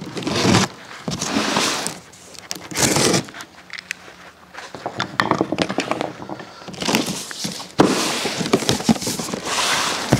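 Cardboard shipping box being opened by hand: repeated bursts of tearing and rustling as packing tape comes off and the flaps are worked loose, with sharp clicks and scrapes of cardboard over the last few seconds.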